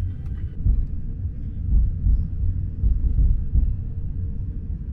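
Low, uneven rumble of an airliner cabin, swelling louder a few times, with a faint steady hum beneath it.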